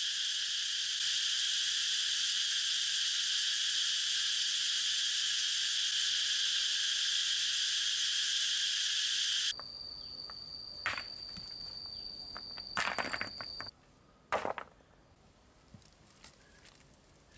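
Dense, steady buzzing of forest insects that cuts off abruptly about nine seconds in. After it come a thin high steady tone and a few sharp knocks of stones being set in place.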